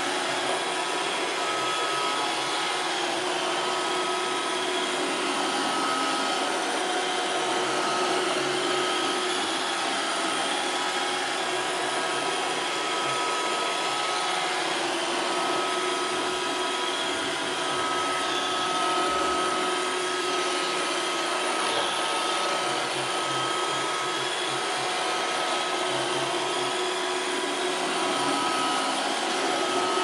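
iRobot Roomba 581 robot vacuum cleaning carpet: a steady whir of its vacuum motor and brushes, with a thin high whine that comes and goes.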